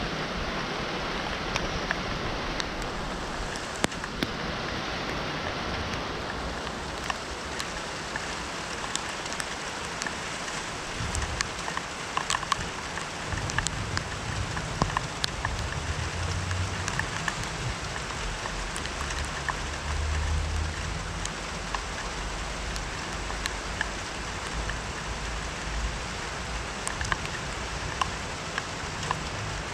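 Steady rain falling, with many individual drops ticking on a nearby surface. A low rumble comes and goes through the middle.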